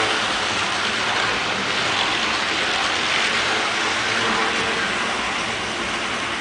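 HO-scale Athearn streamlined passenger cars rolling past close by on the track, a steady rattling rumble of the small wheels on the rails.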